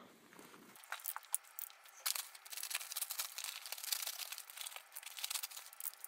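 Paper sacks of concrete mix and hydrated lime crinkling and rustling as they are handled: a steady run of soft, irregular crackles starting about a second in.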